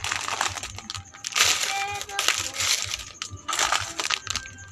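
Plastic-wrapped packs and small cardboard boxes of store goods rustling and knocking together as they are handled in a cardboard carton, in several short bursts.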